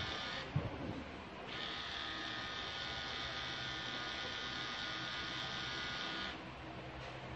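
Pen-style tattoo machine running with a steady high buzz as the needle works into the skin. It stops briefly about half a second in, starts again a second later, and stops again near the end.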